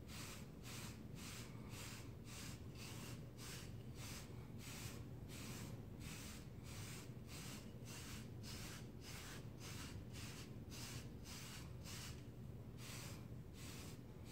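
Hairbrush bristles swishing over short, close-cropped wavy hair in quick, even strokes, about three a second, with a brief pause near the end, over a steady low hum.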